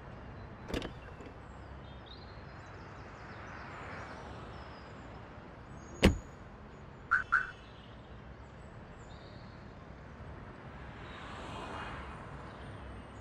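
A car door slams shut, then a car's remote lock sounds two quick beeps, over the hum of street traffic.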